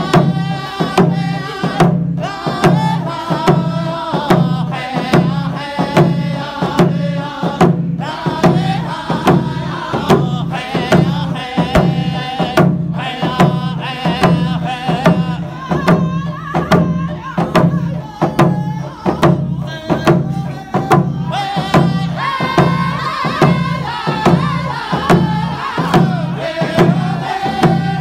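Group of men singing a round dance song together in unison over a steady, even beat of hide-covered hand drums struck in time.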